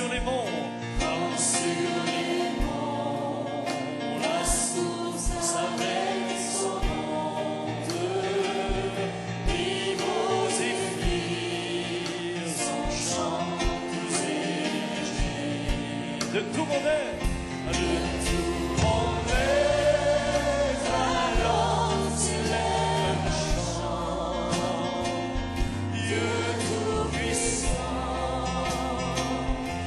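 A congregation singing a hymn together with instrumental accompaniment; deeper bass notes join in about halfway through.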